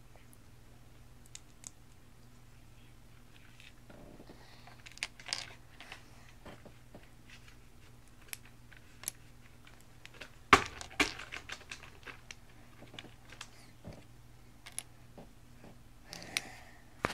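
Plastic Lego bricks clicking and clattering as they are handled and set down on a wooden table: scattered sharp clicks, few at first and busier from about four seconds in, the loudest about ten seconds in.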